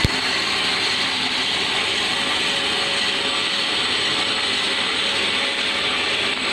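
Band saw machine running steadily with an even mechanical whir, after a sharp click right at the start.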